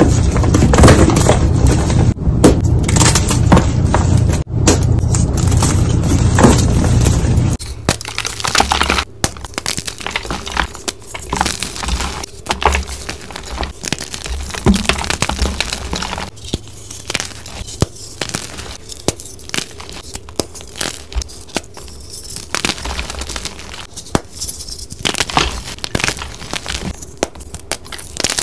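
Hands crushing and crumbling blocks of dyed gym chalk: dense crunching and crackling. A little under eight seconds in, the sound changes to thinner, quieter, quick sharp crackles of sped-up chalk crushing.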